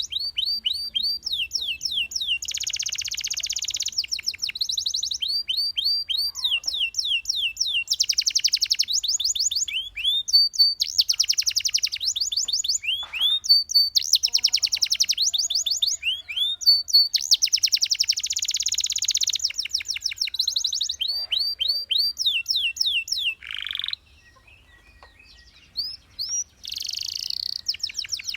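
Domestic canary singing: rapid trills of repeated sweeping whistled notes alternating with fast buzzy rolls, with a short break near the end.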